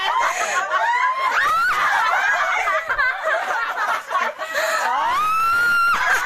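Several people laughing and shrieking over one another, with one long high-pitched squeal near the end.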